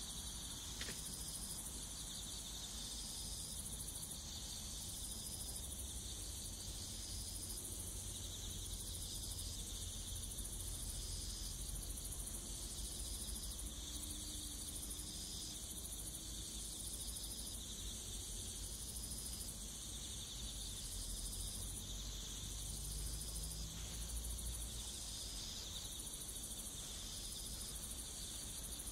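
Insects chirring steadily, a high-pitched drone that pulses about every second and a quarter, over a faint low rumble that swells briefly near the end.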